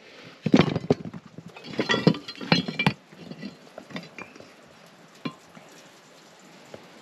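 Old rusty iron horseshoes clinking against one another and knocking on a wooden plank table as they are picked up and set down: a cluster of clinks, some briefly ringing, in the first three seconds, then one more knock a little past five seconds.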